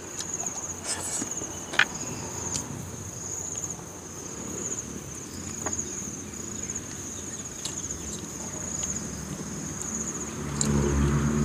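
Insects, crickets, chirring in a steady high pulsing drone, with a few small sharp clicks as snail shells and food are handled from the bowl. A low rumble comes in near the end.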